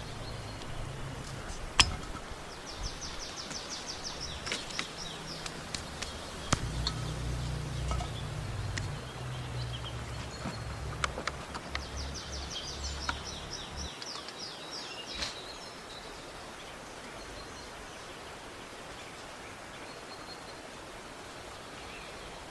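Outdoor ambience with a small bird's rapid high trill heard twice, scattered sharp clicks and knocks (the loudest about two seconds in), and a low rumble that stops about two-thirds of the way through.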